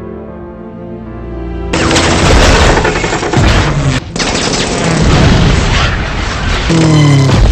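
Soft film-score music cuts abruptly, a couple of seconds in, to loud movie battle sound: rapid machine-gun fire and booms over the noise of WWII fighter-plane engines. Near the end a whine falls in pitch.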